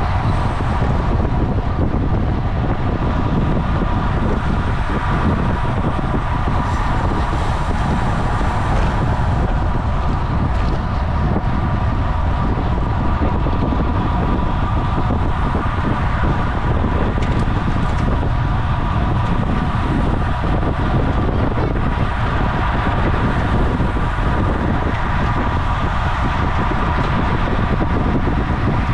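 Steady wind rush on the microphone and tyre noise from a road bicycle at race speed, with a few faint steady tones in the middle pitch range.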